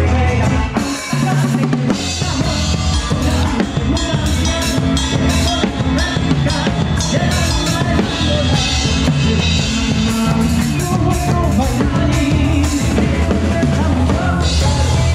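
Live band music led by a drum kit, with kick drum, snare and cymbal strokes over electric guitar. The music dips briefly about a second in, then carries on.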